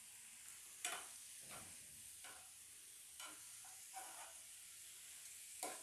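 Metal spoon stirring radish pods (mogri) and peas in a frying pan: a string of short, soft scrapes and clinks against the pan, over a faint steady sizzle of the vegetables cooking.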